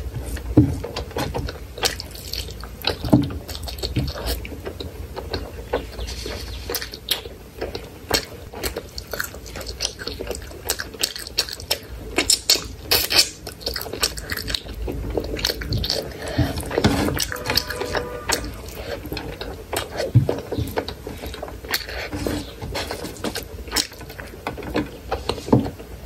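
Close-up wet chewing and mouth smacking of hand-fed rice and chicken curry, with many irregular sticky clicks and squelches.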